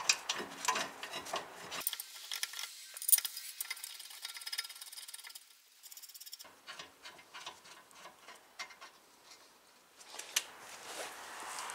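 Light metal clicks and scraping from hand tools and steel as the rear brake caliper bracket bolts are threaded in and run down.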